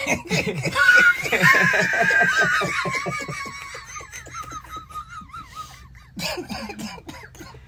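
Several people laughing hard together in quick rhythmic bursts, with one high-pitched laugh riding on top. The laughter is loudest about a second in and dies down over the following few seconds.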